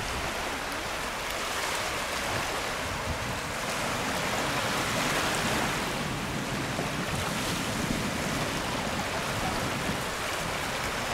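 Sea waves washing onto a beach: a steady rush that swells around the middle. Wind buffets the microphone underneath it.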